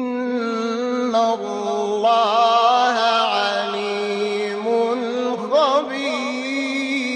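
A man's voice chanting a Quran recitation in the melodic mujawwad style: one long, drawn-out phrase with ornamented, wavering pitch that climbs higher about six seconds in.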